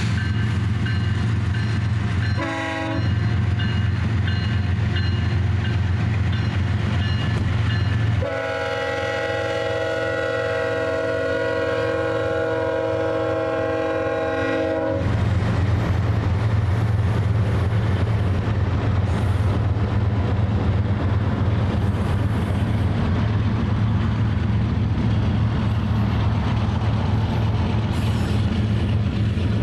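BNSF freight locomotives rumble past with a steady low engine drone, sound a brief horn note about two and a half seconds in, then blow one long horn blast of about seven seconds. After the horn the tank cars roll by with steady wheel and rail noise.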